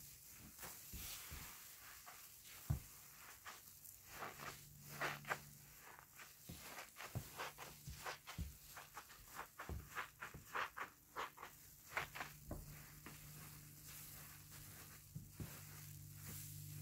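Hands squishing and squeezing through thick soap suds in a basin, an irregular run of soft wet squelches and foam crackles.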